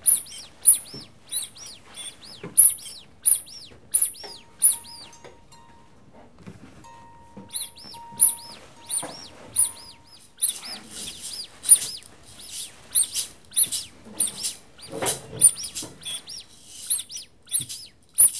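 A bird chirping over and over, short high arched calls at an even pace of one to two a second, pausing briefly about six seconds in and coming thicker in the second half. A faint steady tone sounds under the calls in the first half.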